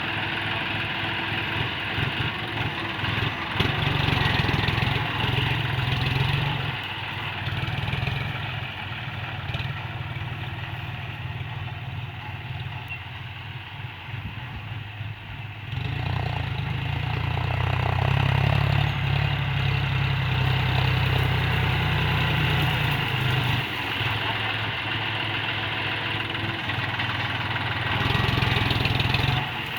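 John Deere 5045D tractor's three-cylinder diesel engine running steadily. It gets louder about 4 s in and again from about halfway through.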